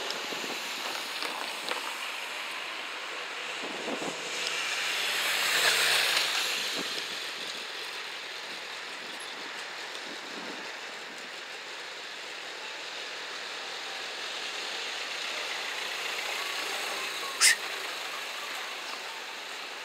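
Outdoor road traffic noise with a car passing, swelling to a peak about six seconds in and fading; a single sharp click comes near the end.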